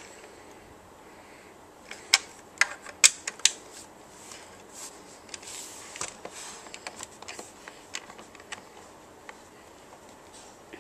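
A hex key clicking and scraping in the screws as the barrel is tightened into the stock of an airsoft spring sniper rifle. There is a cluster of sharp clicks about two to three and a half seconds in, then scattered lighter ticks.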